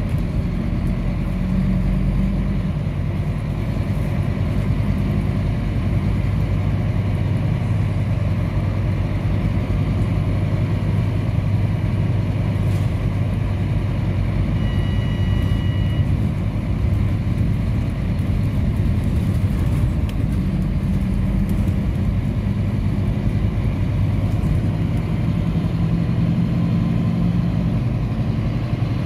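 Scania K310UB city bus's rear-mounted diesel engine and drivetrain heard from inside the cabin, running steadily as the bus drives, with the engine note pulling harder near the start and again over the last third. A short electronic beep sounds about halfway through.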